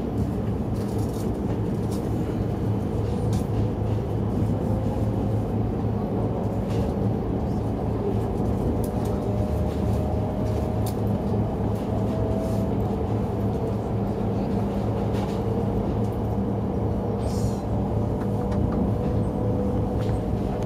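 Cabin noise of an E5 series shinkansen running after leaving the station: a steady low rumble and hum, with a whine that rises slowly in pitch as the train gathers speed.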